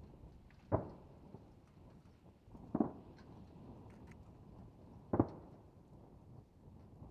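Three booms of aerial fireworks shells bursting far off, about two seconds apart, each trailing off briefly.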